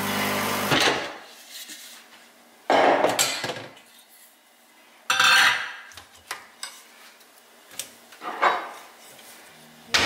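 An espresso machine runs with a steady hum and cuts off just under a second in. Then dishes and utensils are lifted from a dish rack: several separate clinks and knocks of ceramic bowls, glass and utensils, loudest about three and five seconds in.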